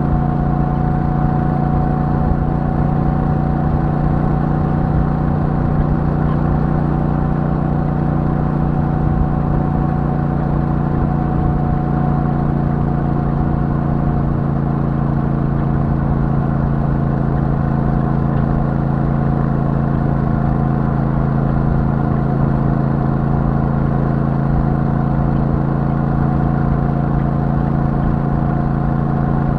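Royal Enfield Super Meteor 650's 648 cc parallel-twin engine running through its stock exhaust as the motorcycle cruises at a steady speed, the engine note holding nearly constant.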